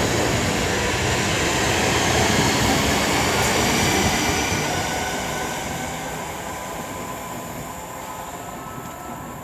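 Two coupled Class 323 electric multiple units pulling away from the platform, their running noise loud at first and then fading steadily over the last few seconds as they draw away.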